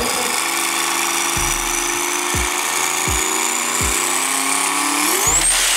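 Electronic background music: a long synth riser climbing slowly in pitch and sweeping up sharply near the end, over a steady kick-drum beat.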